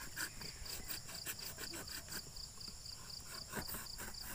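An insect chirping in a steady, even pulse, about four chirps a second, with small irregular clicks and scrapes of a utility knife cutting corrugated cardboard.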